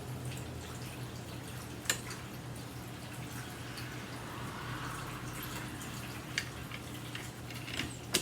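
A few sharp clicks and taps of vacuum cleaner parts being handled during assembly, about two seconds in, again past six seconds, and several near the end, over a steady low hum.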